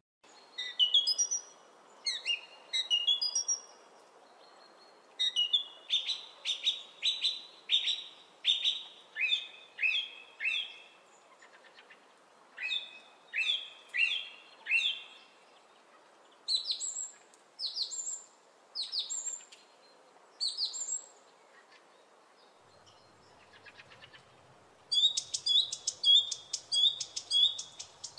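Birds chirping: phrases of short, quickly falling chirps with brief gaps between them, a longer pause about three-quarters of the way through, then a faster, higher run of chirps near the end.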